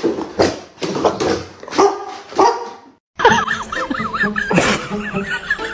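Labrador retriever barking repeatedly, about two barks a second, cut off suddenly about three seconds in. After a brief silence, background music with a wavering melody takes over.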